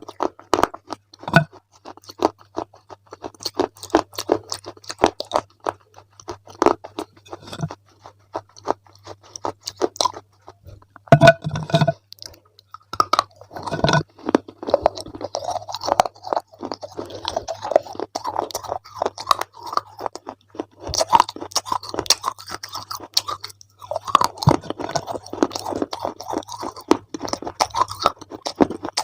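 Close-up chewing of crunchy food: a steady stream of irregular crackling crunches, with brief pauses and a louder bite about eleven seconds in.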